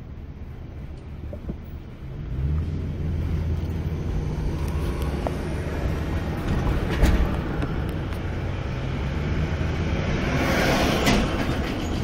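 Car engine pulling away from a stop about two seconds in, heard from inside the cabin, then running on with tyre and road noise. A sharp knock comes about seven seconds in, and a rushing swell near the end.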